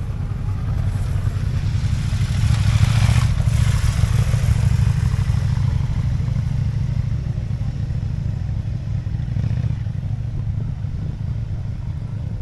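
Motorcycle engines running with a steady low rumble, and one motorcycle getting louder and fading away again about three seconds in.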